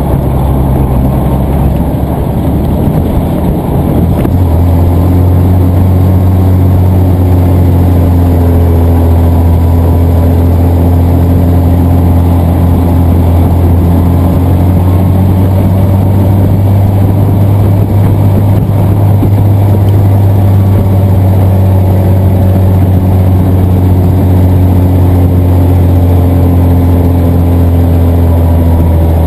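1954 Dodge M37 Power Wagon's flathead inline-six engine running under load as the truck drives along at steady speed, heard from inside the open-sided cab as a loud, steady low hum. It gets a little louder about four seconds in.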